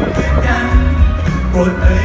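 Pop song played loud at a live stage performance, with a heavy pulsing bass beat.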